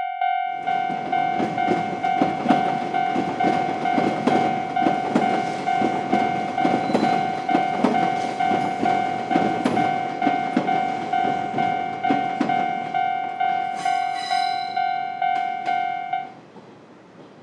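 Japanese railroad crossing warning bell ringing its steady, repeating kan-kan while a train passes, its wheels clattering rhythmically over the rail joints. A brief higher-pitched tone sounds near the end, and then the bell and the train noise stop together.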